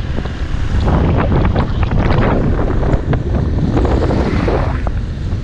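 Heavy wind buffeting a helmet-mounted camera's microphone on a moving motorcycle, a ragged rumble with road and engine noise beneath it. A broader swell comes about four seconds in as an oncoming dump truck passes.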